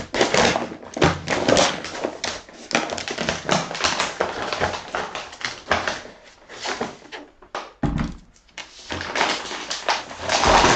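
Brown kraft paper wrapping crinkling and tearing as it is pulled open by hand, with a few thumps from the box and books being handled.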